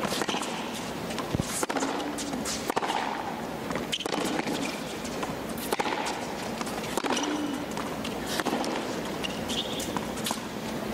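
Tennis rally on a hard court: racket strikes on the ball come about every second and a half, with short grunts from the players on some of the shots.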